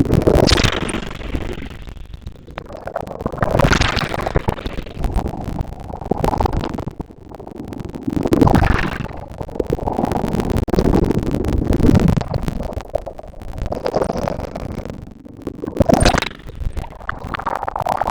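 Sea waves breaking and washing up a beach, swelling into surges of hiss every few seconds over a constant low rumble.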